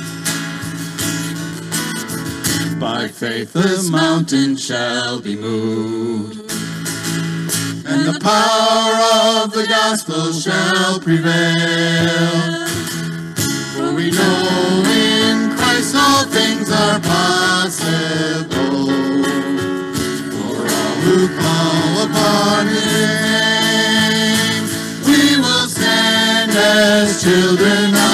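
Live worship band playing a song, with acoustic guitars strumming over electric bass and keyboard and voices singing.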